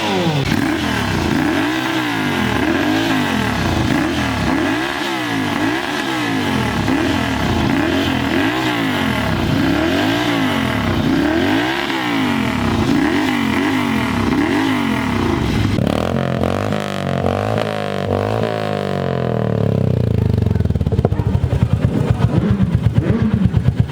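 Superbike engine revved in repeated throttle blips, each rising and falling in pitch about once a second and a bit. From about two-thirds of the way in the blips stop and the engine note settles lower, ending with a rapid, even pulsing as it idles close by.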